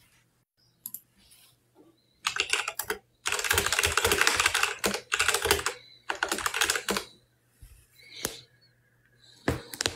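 Runs of rapid, dense clicking close to the microphone: four bursts of about a second each, then a couple of single clicks near the end.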